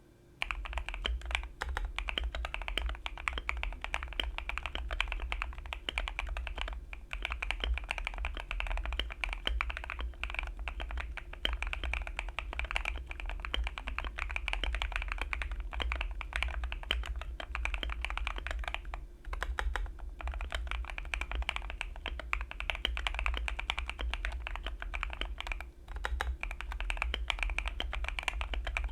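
Steady fast typing on a Keychron Q2 custom mechanical keyboard with lubed and filmed Quartz v2 linear switches, ASA-profile keycaps, and PE-foam and Tempest Tape mods: a dense run of keystroke clacks with a few brief pauses. The typing starts about half a second in.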